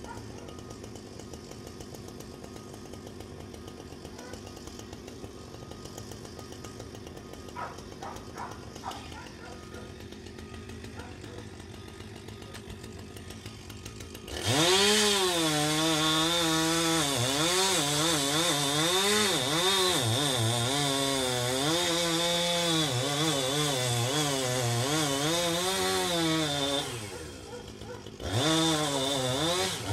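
A low steady hum, then about halfway in a chainsaw is revved up and runs at full throttle cutting into a large tree trunk, its pitch rising and dipping as the chain bites. It drops off about three seconds before the end, then revs again briefly.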